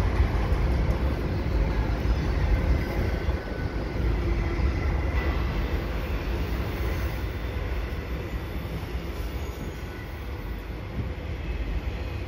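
Autorack cars of a CN freight train rolling past: a steady rumble of wheels on rail that grows a little quieter.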